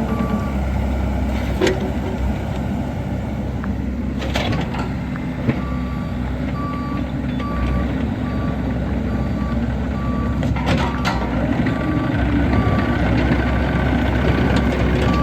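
Bobcat E45 mini excavator's diesel engine running steadily, with its travel alarm beeping about twice a second from about six seconds in. A few sharp knocks are heard along the way.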